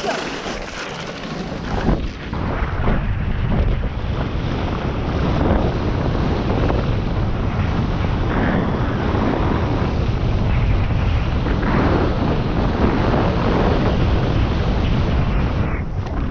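Wind buffeting the microphone over a rush of water, as from fast movement across water. It builds about two seconds in and then holds steady and loud.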